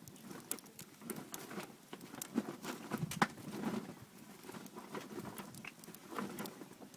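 Small open wood fire crackling, with irregular sharp pops and clicks.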